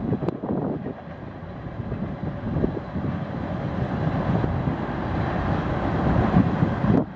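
Empty covered hopper cars of a BNSF grain train rolling over a steel trestle bridge: a steady rumble and rattle of wheels on rail that slowly grows louder, then drops off sharply near the end.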